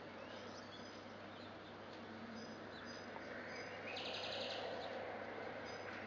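Small songbirds chirping in short high notes several times, with a brief rapid trill about four seconds in, over steady background noise and a low hum.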